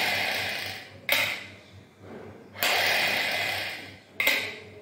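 Hard breaths drawn and blown through the mouthpiece of a three-ball incentive spirometer. Each is an airy rush: a long one at the start and another about two and a half seconds in, each fading over about a second, with a short sharp breath after each of them.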